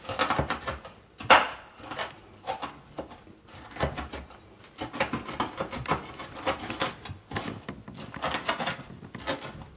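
Kitchen knife chopping fried bacon on a wooden cutting board: a run of irregular knife strikes on the board, several a second, the sharpest about a second in.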